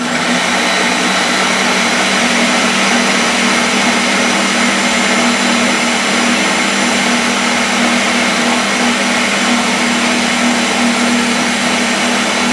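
Ninja countertop blender on its Mix setting, running steadily at one speed while it blends a thick powdered-sugar and pineapple frosting, with a steady low motor hum under the whir of the blades.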